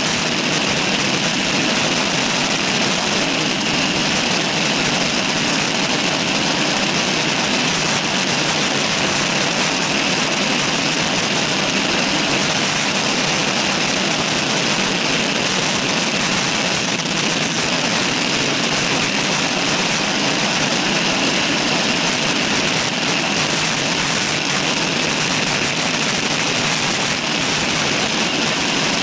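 Steady rush of wind and road noise picked up by a camera mounted on a road bike's handlebars while riding at speed.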